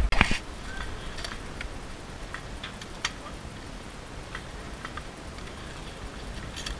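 Scattered, irregular sharp clicks and pops from airsoft guns firing across the field, with one louder pop just after the start.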